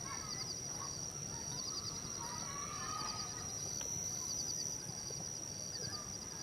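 Outdoor nature ambience: a steady high-pitched drone like insects, a short chirping trill repeating about once a second, and faint scattered bird calls.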